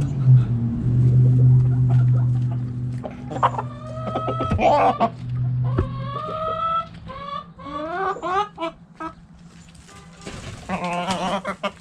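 Backyard chickens clucking and calling: a few drawn-out calls, then a quick run of short clucks, with another call near the end. A steady low hum is there at first and fades out in the first few seconds.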